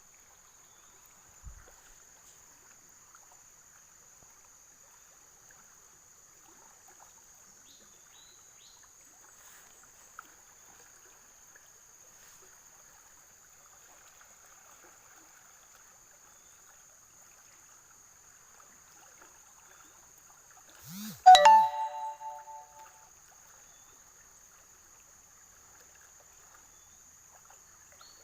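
A steady, high-pitched insect drone with a faint hiss behind it. About 21 seconds in, one bright metallic chime rings out and dies away over about a second and a half.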